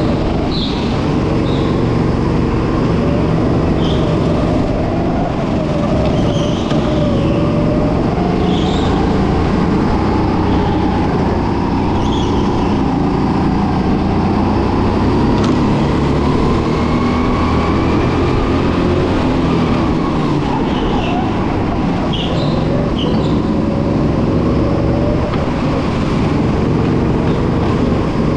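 Racing kart engine heard from on board, running continuously with its pitch rising and falling as the kart speeds up and slows through the corners. Short high chirps are heard now and then.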